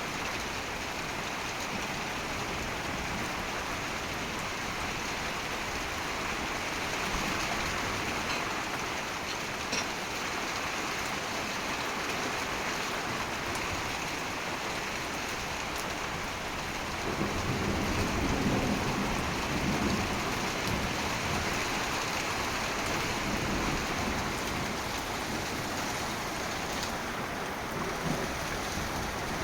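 Heavy rain pouring steadily. A little past halfway a low rumble of thunder rolls in and lasts several seconds before easing off.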